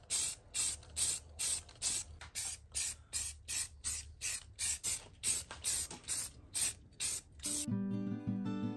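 Aerosol can of white spray paint hissing in short, rapid bursts, about two or three a second, as a wooden stand is touched up. Near the end the spraying stops and acoustic guitar music starts.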